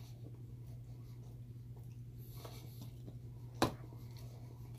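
Faint chewing of a mouthful of pizza over a steady low hum, with one sharp click about three and a half seconds in.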